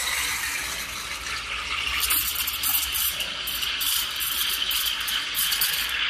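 Espresso machine steam wand hissing and gurgling as it steams chocolate milk in a stainless steel pitcher. From about two seconds in, the hiss turns choppy and sputtering.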